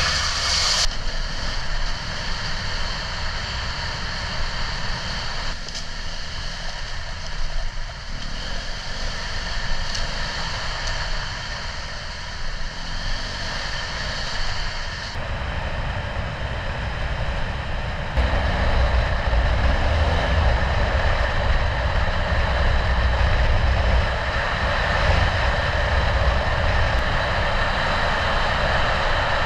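Adventure motorcycle running on the move, its engine mixed with wind and road noise; the sound turns louder and heavier about eighteen seconds in.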